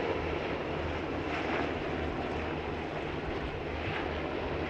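A formation of Black Hawk helicopters flying overhead: a steady drone of rotor blades and turbine engines.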